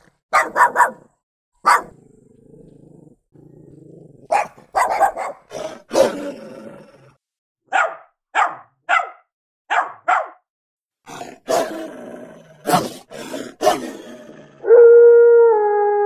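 Dogs barking in short bursts, with a faint low growl about two seconds in and a run of five quick, evenly spaced barks around the middle. Near the end a long, steady howl begins.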